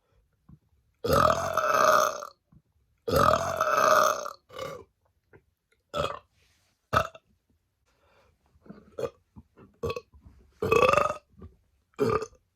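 A woman burping deliberately, on command: two long burps of over a second each, then a string of shorter burps, and another long burp near the end.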